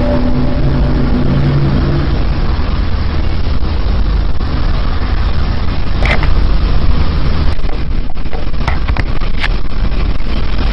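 Loud, steady low rumble with a droning hum of several steady tones that fades out about two seconds in. A few sharp clicks come in the second half.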